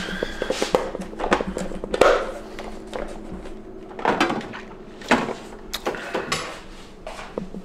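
Kitchen handling noises: a run of short knocks, clicks and clatter, with brief rustling swishes, over a steady low hum.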